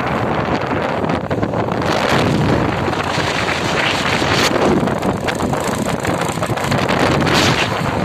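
Wind buffeting the microphone: a loud, steady rush of noise with a few sharper gusts.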